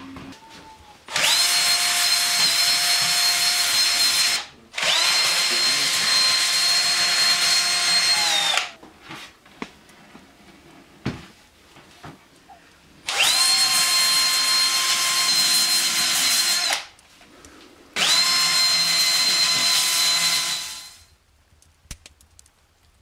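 An electric power tool running four times, each run about three to four seconds long: a steady high whine that spins up as it starts and winds down as it stops.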